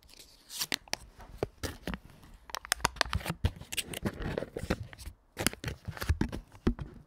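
Foil butter wrapper being peeled open and handled, crinkling and rustling with many sharp, irregular crackles.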